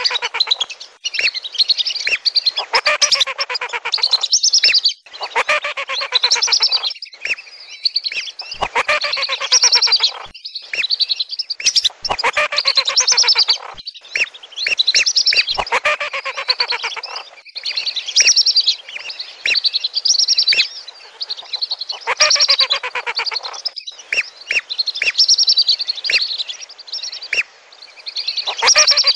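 Flock of whistling ducks calling: repeated bouts of high whistles, several birds overlapping, each bout a second or two long with short breaks between. It is a lure call for lesser and wandering whistling ducks.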